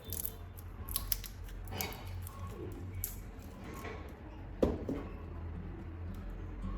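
Hand-work sounds on small parts: a scatter of irregular clicks and scrapes, with one sharper knock about four and a half seconds in.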